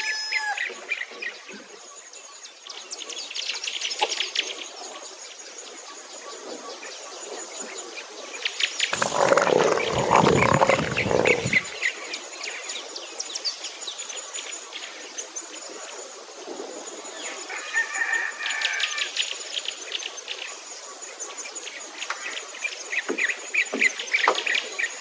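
Wild birds chirping and calling, with a high-pitched insect trill pulsing on and off throughout. About nine seconds in, one bird gives a loud call lasting nearly three seconds, the loudest sound in the clip.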